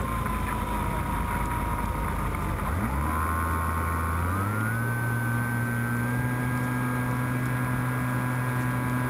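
Skywalker RC plane's electric motor and propeller whining over rushing air. The pitch steps up twice, about 3 and 4.5 seconds in, as the throttle is raised, and then holds steady.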